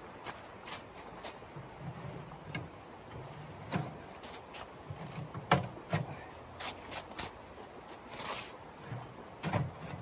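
Footsteps on icy snow and several sharp knocks as a small sheet-metal wood stove is handled and lifted, over the steady rush of a creek.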